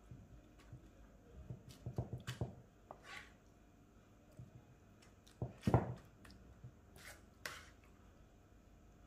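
Serving spoon spreading thick minced-beef sauce over crisp fried bread on a platter: soft wet plops and light scrapes with a few clicks, in a cluster about two seconds in and a louder plop just before the middle.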